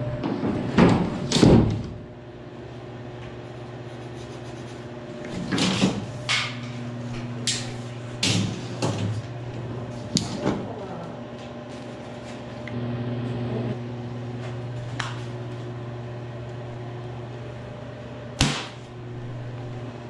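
Knocks, taps and scrapes of handling a sheet of XPS foam insulation board and a tape measure, over a steady low electrical hum.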